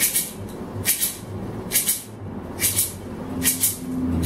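Handheld gourd rattle shaken in a slow, even beat, about one shake a second, five shakes in all. A low steady hum comes in about three seconds in.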